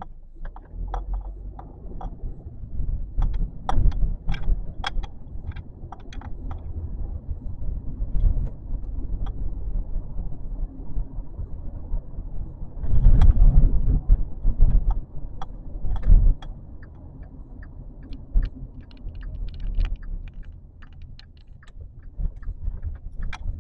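A car driving slowly, recorded from inside: a steady low rumble of engine and road with many small rattles and clicks. A heavier rumble comes about 13 seconds in, lasting a second or so, and again briefly about 16 seconds in.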